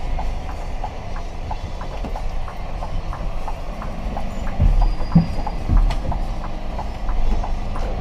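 Truck running at low speed, heard from inside the cab: a steady low engine rumble with a regular light ticking about three times a second, and a few heavier low thumps around five seconds in.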